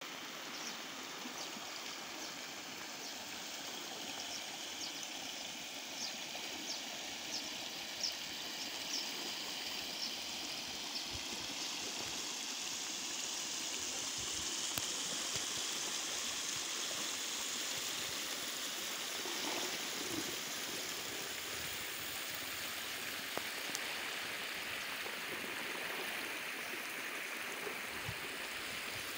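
Rainwater runoff rushing steadily along a field irrigation channel and across flooded paddy fields, an even, constant hiss of flowing water. A string of short high ticks sounds during the first ten seconds.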